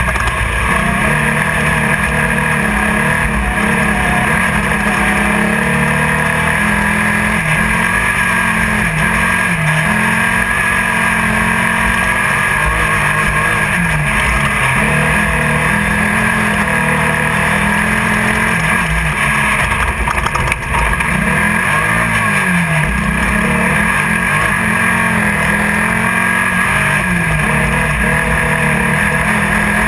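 Class 1600 off-road race car's engine heard from inside the car at race pace, its revs rising and falling continuously. There is a brief drop in level about twenty seconds in.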